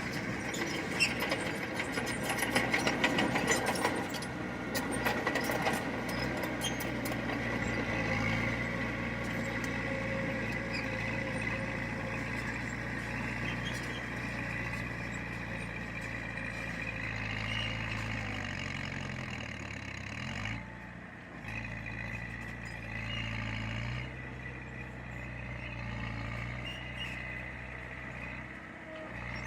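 Heavy diesel earthmoving machine running steadily, with metallic clanking over the first few seconds and a brief dip in engine speed about twenty seconds in.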